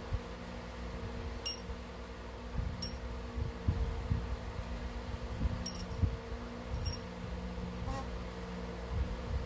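Small metal bird-toy bell hanging from a chain, struck by an eclectus parrot's beak: four short, bright rings in two pairs. A steady fan hum runs underneath.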